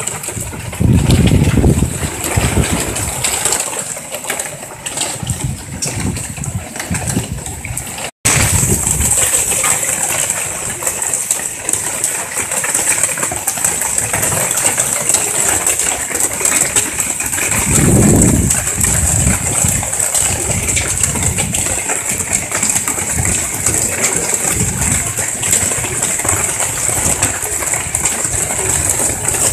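Heavy thunderstorm rain pouring steadily, with gusts of wind buffeting the microphone in low rumbling swells, the strongest about a second in and again around eighteen seconds. The sound cuts out for an instant about eight seconds in.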